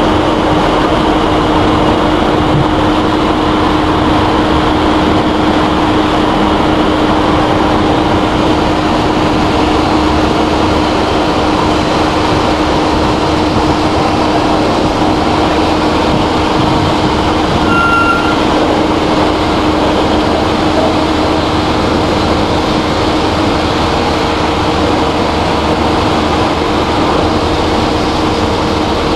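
Steady, loud running of a farm tractor's engine with a constant hum as it hauls a line of grain hopper wagons, mixed with the general mechanical noise of the grain plant.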